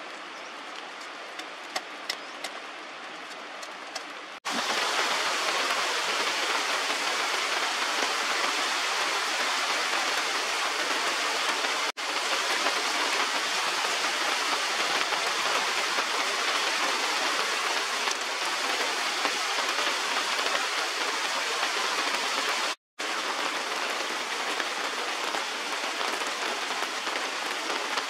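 Heavy rain pouring steadily on foliage as a dense, even hiss. It is quieter for the first four seconds or so, with a few clicks, then jumps abruptly to a loud downpour. The sound breaks off for a moment twice.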